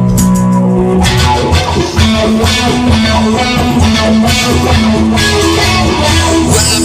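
Instrumental stretch of a rock song with guitar and bass over a steady beat; a held chord gives way to busier playing about a second in.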